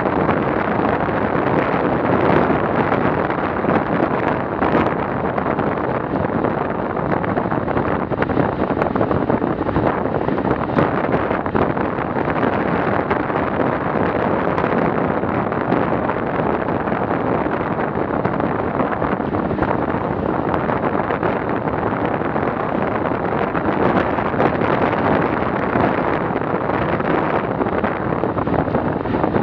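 Steady rush of wind buffeting a handlebar-mounted Garmin VIRB action camera's microphone on a bicycle riding at about 40 km/h.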